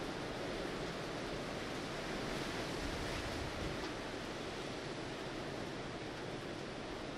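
Heavy surf from Hurricane Ian's swell breaking along the beach, heard as a steady rush of noise, with wind.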